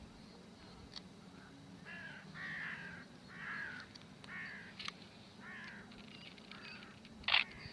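A crow cawing, about six short harsh calls spread over several seconds, with a sharp click near the end.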